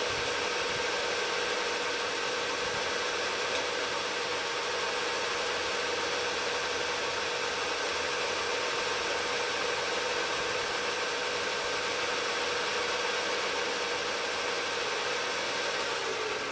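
Knee mill spindle running steadily with an end mill cutting a black plastic workpiece, a constant machine whine over a hiss. Near the end the pitch sags slightly.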